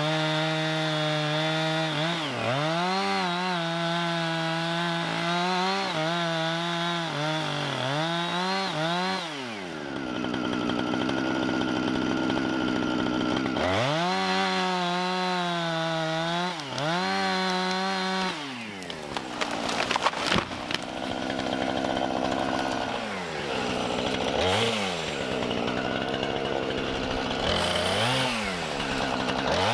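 Chainsaw running and cutting, its engine note dipping and recovering again and again under load. A brief clatter of sharp knocks comes about two-thirds through, followed by shorter revs.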